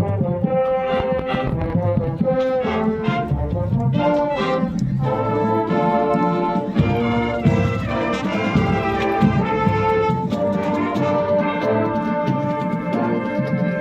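Large marching band of over 200 players: the brass section plays a melody in full held chords over percussion.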